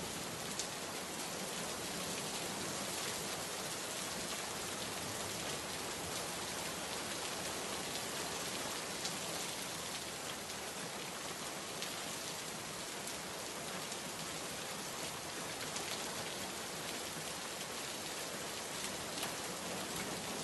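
Steady rain, an even hiss with scattered sharper drop taps.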